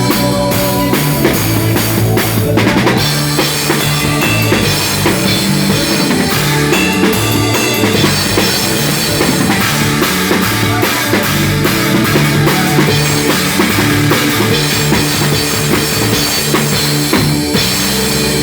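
Rock drum kit played through a song, kick and snare driving under bass and other pitched instruments.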